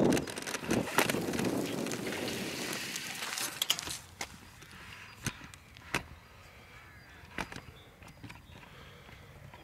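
Kick scooter rolling along a path: a rumbling hiss of the wheels with rattles and clicks, fading out about four seconds in. After that, a few separate sharp knocks.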